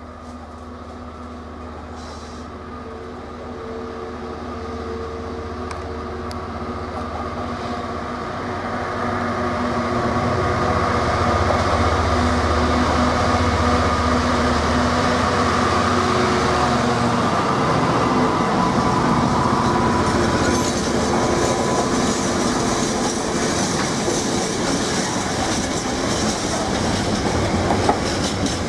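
GB Railfreight Class 66 diesel locomotive with its two-stroke V12 engine running, growing steadily louder as it approaches and passes close by, hauling a container freight train. Past the halfway point the engine note gives way to the rumble and clatter of loaded container wagons rolling past.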